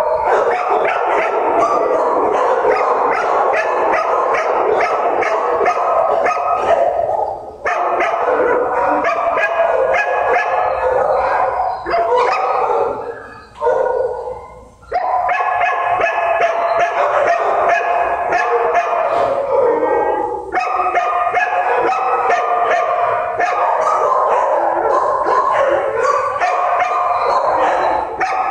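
Many shelter dogs barking and howling at once in the kennel runs, a continuous overlapping din with a couple of brief lulls, the longest about halfway through.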